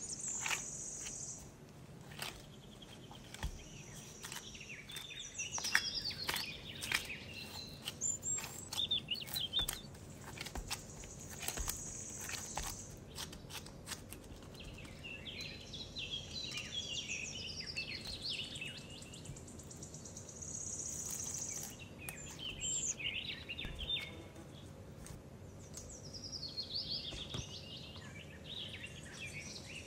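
Birds chirping and singing in the background in repeated short phrases, with scattered soft clicks and crunches of gloved hands kneading stiff dough in a glass bowl.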